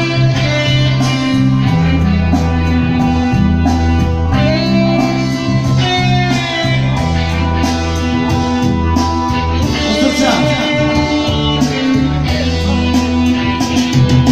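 Live band playing, with a keyboard and a bass line of held notes changing every second or so.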